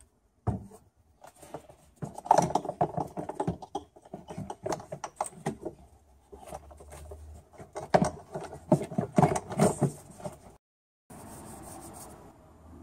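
A car's plastic air-filter box and intake hose being handled and pushed back into place: an irregular run of plastic clicks, knocks and scrapes. After a short break the knocks give way to a steady low hum.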